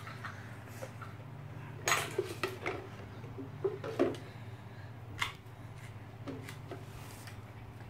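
Hard plastic Beyblade spinning-top parts being handled and fitted: scattered light clicks and clinks, the sharpest about two and four seconds in.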